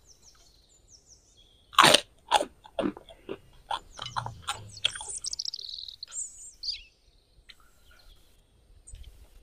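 Crisp crackers crunching as they are bitten and chewed: one loud bite about two seconds in, then a run of smaller crunches for a few seconds. Birds chirp in the background.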